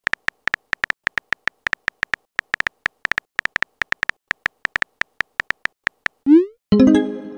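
Phone keyboard typing sound effect: quick, even key clicks at about six a second as a text message is typed. About six seconds in the clicks stop, followed by a short rising swoop as the message is sent and then a ringing chime that fades.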